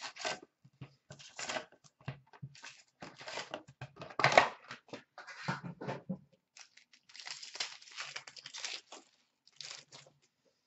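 Hands tearing open a sealed box of hockey trading cards and handling its wrapped packs: an irregular run of tearing, crinkling and rustling of cardboard and wrappers that stops shortly before the end.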